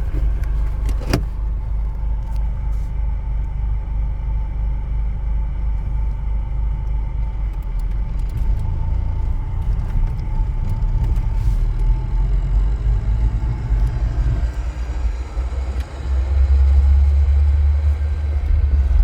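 Volkswagen Passat B5.5 with a 1.8T turbo four and a swapped-in five-speed manual gearbox, driving in gear with a steady low rumble and a sharp click about a second in. The rumble grows louder near the end. The owner reports a rotational rattle and scraping from the bell housing that rises with wheel speed and stops when the clutch is pressed in.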